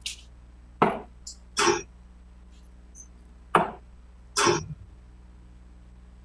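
Steel-tip darts hitting a bristle dartboard: sharp knocks in two pairs, each pair under a second apart.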